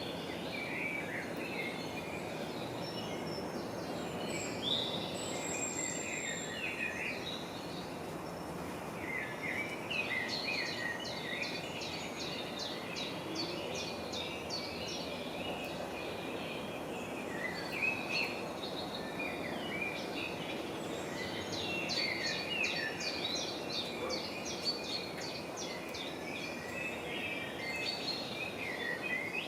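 Small birds chirping in busy bursts over a steady wash of background noise.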